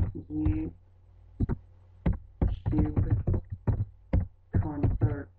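Computer keyboard keys clicking as a short phrase is typed: a string of quick keystrokes at an uneven pace.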